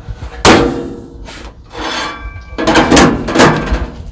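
Metal cabinet doors of a Blackstone griddle station are pushed shut: one sharp bang with a short metallic ring about half a second in, then a few more knocks and rattles of metal on metal.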